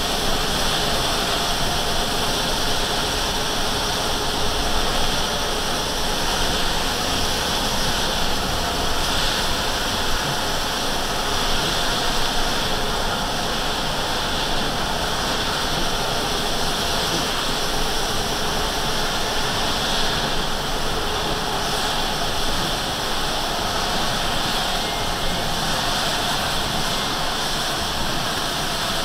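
Steady hiss and rumble of a vehicle driving on a rain-soaked highway, heard from inside the cab: tyres throwing water off the wet road, rain on the windshield, and the engine running at cruising speed.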